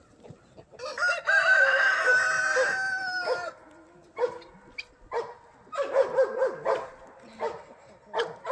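A rooster crows once, a long call lasting about two and a half seconds, followed by a run of short clucking calls from the chickens.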